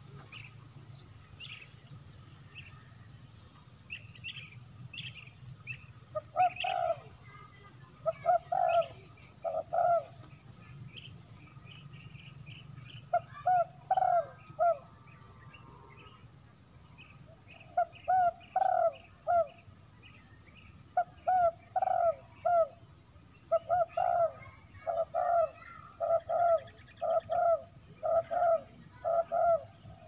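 A dove cooing in short phrases of three or four low notes, starting about six seconds in and repeating more and more often toward the end. Thin chirps from smaller birds sound over the first several seconds.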